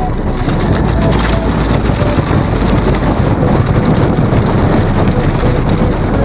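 Wind rushing over the microphone and the rumble and rattle of a downhill mountain bike rolling fast over a leaf-covered dirt trail, a loud steady rush.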